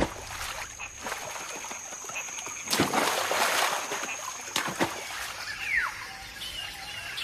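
Macaques splashing into river water: one long splash about three seconds in, then two short splashes, over a steady high-pitched hum; a short falling call near the end.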